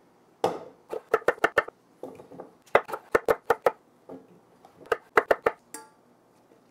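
Chef's knife chopping yellow potatoes on a walnut end-grain cutting board: three quick runs of about five to seven sharp knocks each. Near the end comes a short metallic clink as pieces go into a small stainless steel saucepan.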